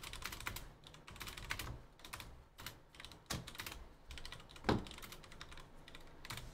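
Typing on a computer keyboard: irregular runs of quick key clicks, with one louder knock a little before five seconds in.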